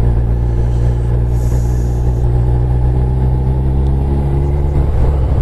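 Motorcycle engine running steadily while riding, its note shifting just before the end, with a brief hiss about a second and a half in.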